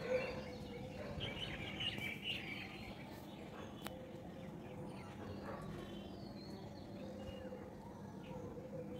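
Small birds chirping and calling, busiest about one to two and a half seconds in, over a faint steady hum and outdoor background noise.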